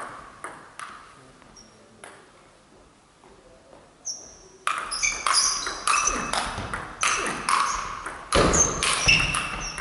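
Table tennis ball being hit: a few light clicks at first, then from about five seconds in a fast rally of sharp, ringing clicks as the ball strikes the bats and the table in quick succession.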